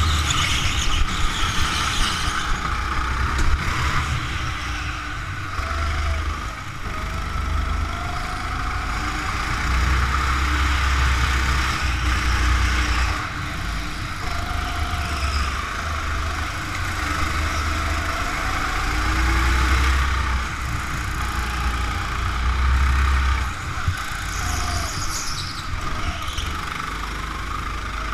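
Go-kart engine heard onboard while lapping a track, its revs rising and falling through the corners over a steady low rumble.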